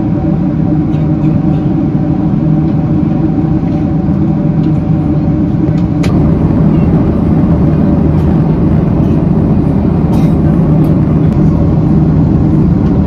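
Steady in-flight cabin noise of a Boeing 767-300ER at cruise: the even rush of airflow and engines with a low hum. A single click comes about six seconds in, and the noise is slightly louder after it.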